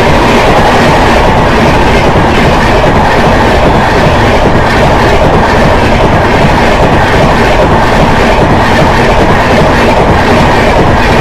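Indian Railways LHB passenger coaches passing close by at speed: loud, steady rolling noise of steel wheels on rail with a clatter over the rail joints.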